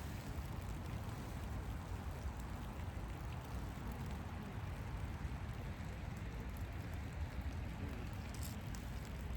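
Steady light rain, an even hiss with no separate drops or knocks standing out.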